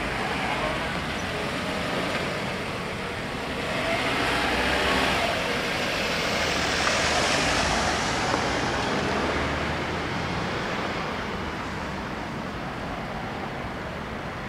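Road traffic noise: a motor vehicle passes, its sound swelling to loudest about five to eight seconds in and then fading.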